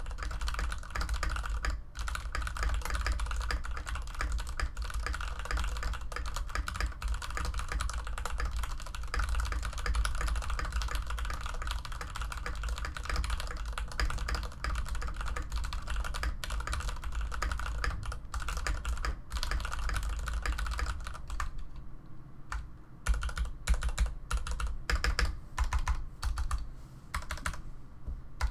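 Fast, continuous typing on a Varmilo VA87M mechanical keyboard with Cherry MX Red linear switches. About two-thirds of the way in it changes to separate, spaced key presses, the test of the stabilized keys.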